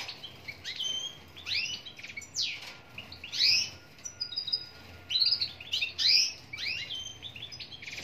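Male European goldfinch singing: phrases of quick, high twittering and sweeping chirps with short pauses between them, with a few thin, short whistles about four seconds in and a denser run of twitters near the end.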